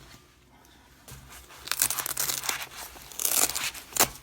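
Plastic packaging crinkling and tearing in a few bursts as a camcorder is unwrapped, with a sharp click near the end.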